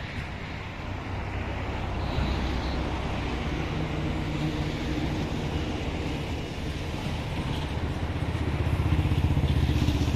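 Steady low vehicle rumble with a few faint pitched hums in it, growing louder and loudest near the end.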